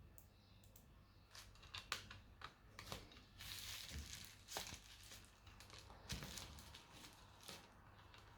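Faint scattered clicks and taps from hands handling small laptop parts, with a short rustle about three and a half seconds in.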